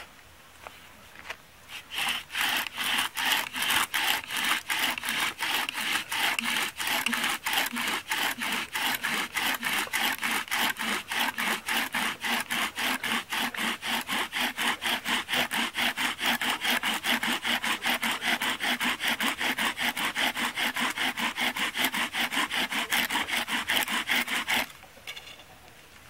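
Bow drill in use: a balsam poplar spindle spun back and forth by a maple bow with a rope string, rubbing in a balsam poplar hearth board. A steady run of quick, even strokes, a pulse of rubbing with each pass of the bow, starts about two seconds in and stops abruptly near the end. This is the friction grinding hot black dust into the notch to form an ember.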